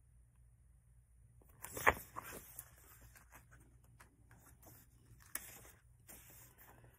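Paperback book pages being handled and turned, paper rustling on and off after about a second and a half, with a sharp louder rustle near two seconds in.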